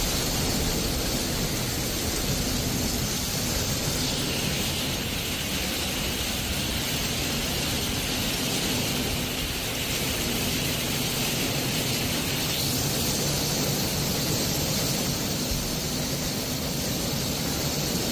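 Torrential, wind-driven rain pouring down in a violent storm: a dense, steady hiss with no breaks.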